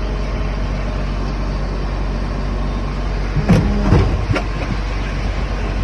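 Heavy diesel engines of a concrete mixer truck and concrete pump running steadily at a low hum, with a short burst of clanking knocks about three and a half seconds in.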